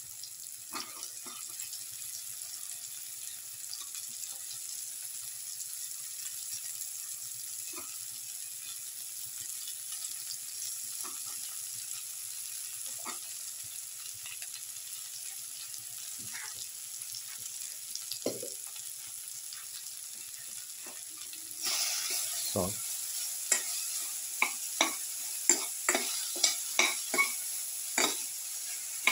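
Sliced okra sizzling steadily in hot oil in a pan, with scattered small pops. About three quarters of the way in, a metal skimmer starts stirring it: the sizzle gets louder and sharp clicks of the skimmer against the pan come about twice a second.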